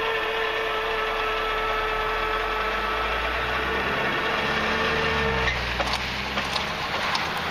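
Freight train running past: a steady whine over a rumble, with a low engine-like sound rising and falling in the middle. The whine cuts off about five and a half seconds in, and a few light clicks follow.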